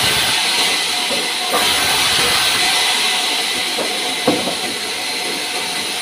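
Sawmill band saw running and ripping a pine slab lengthwise: a steady hissing cut, with a single knock about four seconds in.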